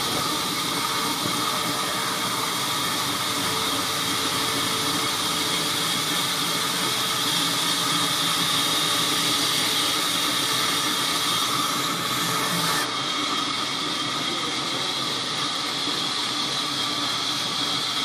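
Sawmill band saw running steadily as it rips a slab of rain tree wood: a continuous hiss of blade through timber with steady whining tones over it. The highest part of the hiss falls away about thirteen seconds in.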